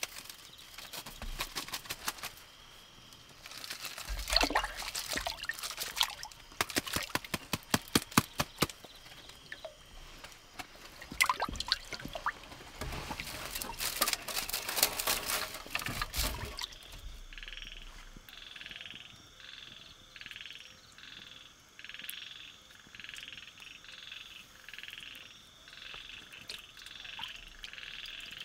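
A frog calling at night in a repeated pulsing call, roughly one call a second, which takes over about two thirds of the way in. Before it come many sharp clicks and knocks, loudest in the first half.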